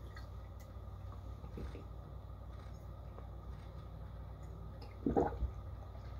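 A man gulping down a glass of tea in one go, with faint swallowing sounds, then a short vocal sound about five seconds in after finishing it.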